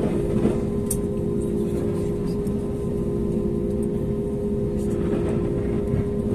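Steady drone and low hum of an Airbus A320neo cabin, heard from inside, while de-icing fluid is sprayed onto the window and fuselage; the spray makes a rushing hiss that grows louder near the end. A light click about a second in.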